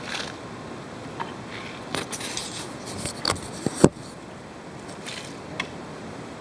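Steel shovel digging in stony soil: scraping and a string of sharp clinks as the blade strikes stones, the loudest clink a little past halfway.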